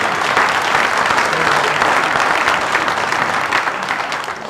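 Audience applauding, a dense steady clatter of clapping that dies away near the end.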